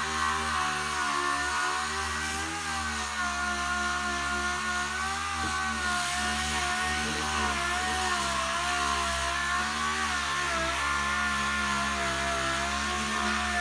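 Air-powered dual-action (DA) sander running steadily while it sands down body filler on a truck dashboard. Its whine wavers slightly in pitch as the pad is worked over the surface.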